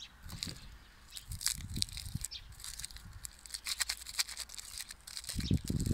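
Crinkly lollipop wrappers crackling as fingers pick up a lollipop and start peeling its wrapper off, with many short crackles. A dull low rumble rises near the end.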